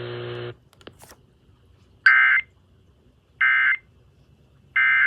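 Emergency Alert System SAME data bursts: three short, identical high-pitched warbling bursts about a second and a third apart, the end-of-message code that closes a broadcast warning. Before them a steady hum cuts off about half a second in, followed by a couple of faint clicks.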